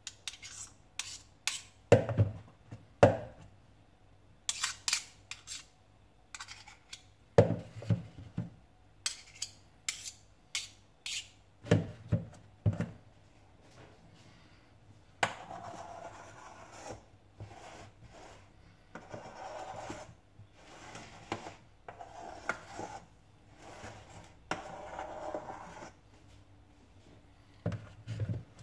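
Metal spoon and knife clinking and scraping against a bowl and cake tin as cream topping is scooped and spread onto a cheesecake. Sharp taps and clicks in the first half give way to a run of longer scraping strokes, each about a second long.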